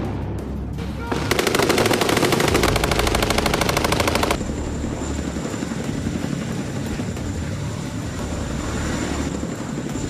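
A machine gun firing one long, rapid burst of about three seconds, starting about a second in, followed by steady low rumbling background noise.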